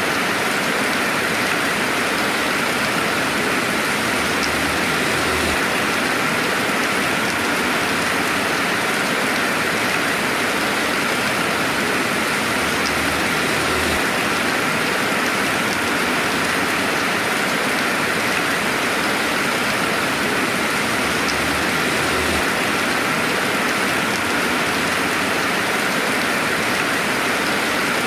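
Steady rainfall without thunder, an even hiss of rain with faint individual drop ticks.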